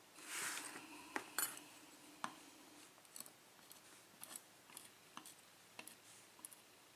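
Faint light clicks and taps of small brass lock pins being nudged together on a tray, with a soft rustle just after the start.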